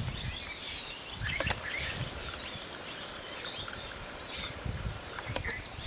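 Several small birds chirping and trilling in short high calls, over a low steady rumble of outdoor background noise.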